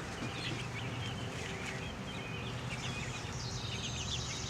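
A flock of young chickens peeping, with many short, quick chirps overlapping one another, over a steady low background hum.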